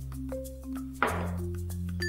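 Background music: an upbeat instrumental tune of held notes over a steady bass line, with a short noisy swell about a second in.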